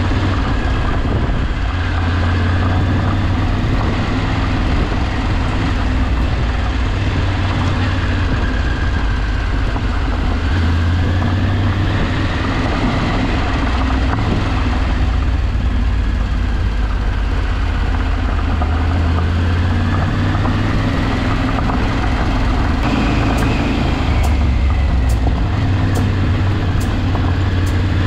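Motor vehicle engine running under way, with a steady low rumble and a whine that slowly rises and falls in pitch. A few faint sharp ticks come near the end.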